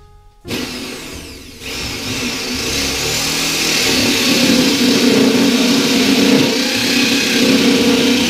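Corded electric drill with a hole saw starting up about half a second in, then cutting into a marine plywood panel: a steady motor hum under a loud grinding rasp. It gets louder at about a second and a half as the saw bites into the wood.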